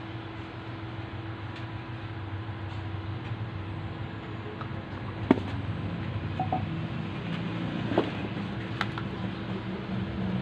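A steady low mechanical hum and rumble that grows slightly louder, with three sharp clicks in the second half, the first and loudest about halfway through.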